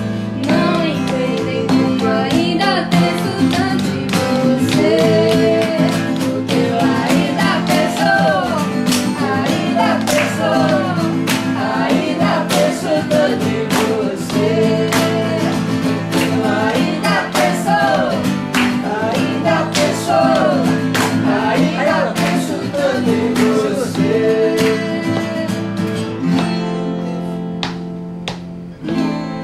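Acoustic guitars strummed together with voices singing a soft pop melody over them. Near the end the singing stops and the playing quietens.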